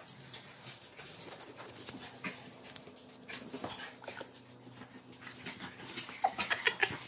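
A husky and a malamute play-wrestling on a tile floor: claws clicking and scrabbling, with short whiny play vocalizations that come thicker near the end.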